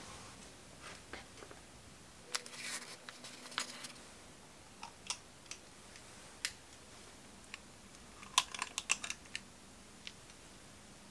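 Metal ice cream scoop scraping vanilla ice cream out of a paper tub and dropping it into a glass dessert bowl: quiet, scattered scrapes and light clicks, bunched about two seconds in and again near the end.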